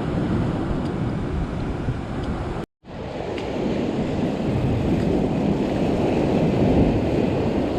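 Rough wind buffeting the microphone over ocean surf on a rock ledge, a steady rumbling noise that drops out completely for a moment about two and a half seconds in, then carries on.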